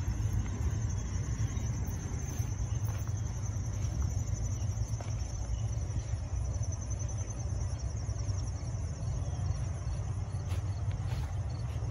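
A steady low rumble, with a continuous high-pitched, pulsing chorus of insects such as crickets running over it. A few faint clicks come near the end.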